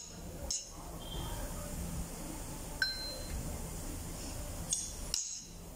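Several light metal clinks as loose steel cylinder head bolts and tools are handled on a stripped-down V6 engine block. One clink about three seconds in rings briefly like a small bell. A low steady background hum runs underneath.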